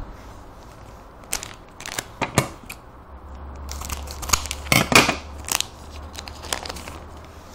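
Foil wrapper of a baseball card pack crinkling and crackling in the hands as it is opened, a string of sharp crinkles and snaps that is thickest about five seconds in.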